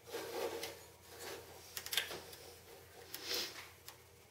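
Small metal clicks and scrapes as a snap ring is worked by hand onto the shaft of a lawn tractor's variable speed drive pulley, without snap ring pliers. A few separate scrapes, with the sharpest click about two seconds in.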